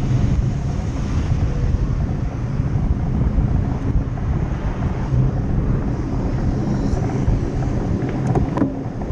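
Steady low rumble of city traffic and wind on a bicycle-mounted camera's microphone, with a few sharp clicks near the end.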